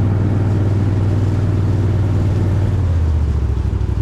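An engine running steadily at speed. About three seconds in, its note drops as it throttles down.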